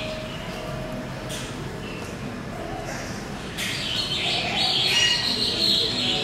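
Small birds chirping and twittering, a few scattered calls at first, then a busier and louder run of chirps from a little past halfway.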